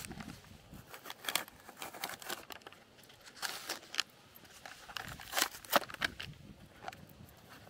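Plastic sandwich packaging being handled, crinkling in a series of irregular sharp crackles.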